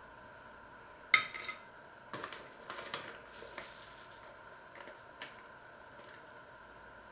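A metal spoon clinks sharply against a china plate about a second in, with a brief ring. Several seconds of scraping and lighter clinks follow as food is scooped out and spooned onto the plate.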